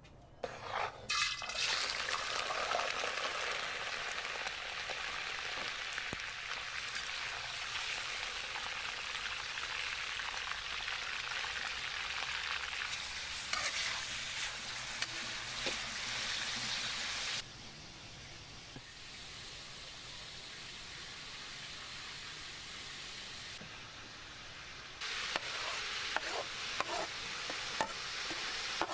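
Chunks of meat frying in hot oil in a wide metal pot, sizzling steadily while a metal ladle stirs and scrapes them. The sizzle drops sharply about two-thirds of the way through, then comes back louder near the end with a few sharp knocks and scrapes of the ladle.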